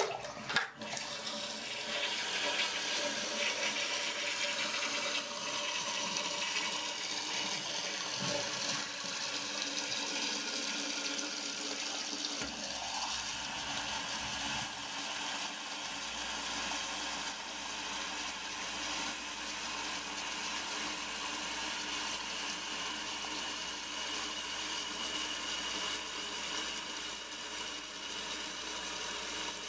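A 1987 Kohler Wellworth toilet is flushed: a sharp clack of the handle at the start, then the rush of water that settles into steady running water as the tank refills.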